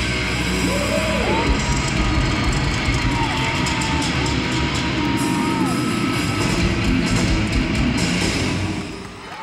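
Hard rock band playing loud and live, with full drum kit, distorted guitars and a lead line of sliding notes, recorded on a camcorder microphone in an arena. The band stops about nine seconds in and the sound drops away.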